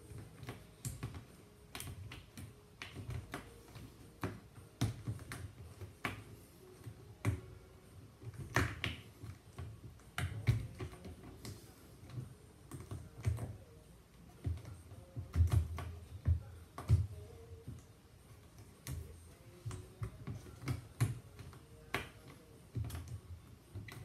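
Irregular clicks, taps and soft low thumps of hands pressing a washing machine's rubber door boot back onto the rim of the front opening.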